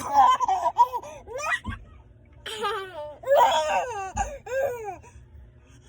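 Baby laughing in two bouts of short, repeated high-pitched notes, the second bout starting about two and a half seconds in.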